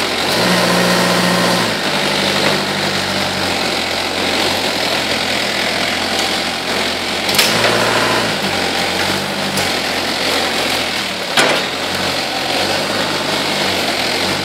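Toyota forklift engine running, its speed stepping up and down as the bale clamp and mast hydraulics are worked to lower a paper bale. Two sharp clacks, about seven and eleven seconds in.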